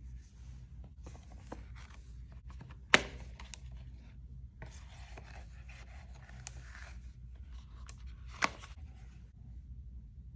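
Hands handling the cardboard and paper packaging of an Apple FineWoven case as it is unboxed: rustling and scraping, with two sharp knocks about three seconds in and about eight seconds in.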